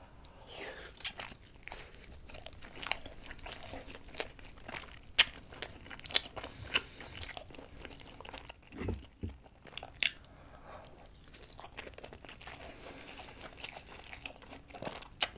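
Close-miked chewing of a mouthful of giant steamed dumpling, meat filling and dumpling skin, with many sharp wet mouth clicks.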